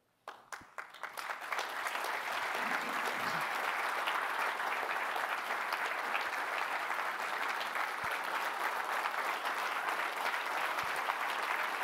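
Audience applauding: a few scattered claps swell within about two seconds into steady, sustained applause.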